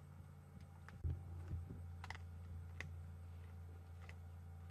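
Leopard crunching bones as it feeds on a steenbok carcass: a few sharp, separate cracks spaced irregularly, over a steady low hum, with a low thump about a second in.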